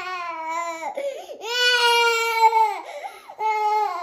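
A toddler crying hard in three long wails, with short sobbing breaths between them.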